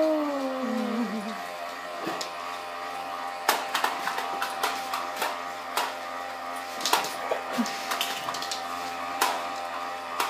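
A bubble machine's motor whirring steadily, with a string of sharp snapping clicks from about three and a half seconds in as dogs bite at the bubbles. A dog's whine falls in pitch at the start.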